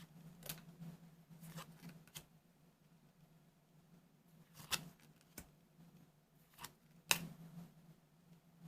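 Trading cards being handled: scattered soft clicks and snaps as cards are slid and set down, the two sharpest about four-and-a-half and seven seconds in, over a faint steady low hum.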